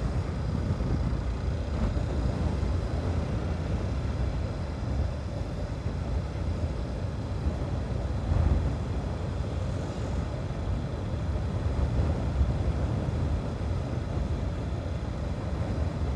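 Steady low rumble of riding a motorcycle: wind buffeting a helmet-mounted phone microphone over the bike running.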